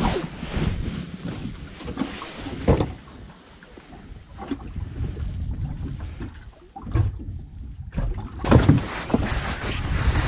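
Wind buffeting the microphone, with sea noise around a small fishing boat and a few short knocks from fishing line and gear being handled. The wind gusts louder near the end.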